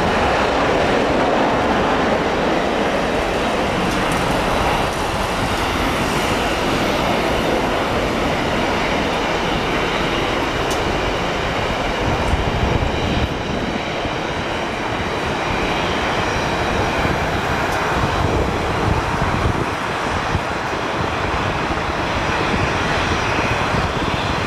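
Boeing 737-800 freighter's CFM56 turbofan engines at takeoff thrust during the takeoff roll: a loud, steady jet rumble, with a thin whine over it in the second half.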